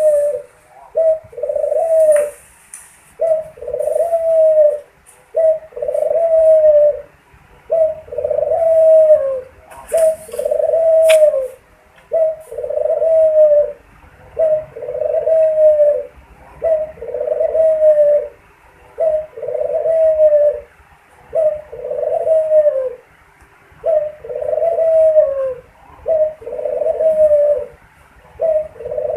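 Puter dove (collared dove) cooing over and over, one arching coo about every second and a half.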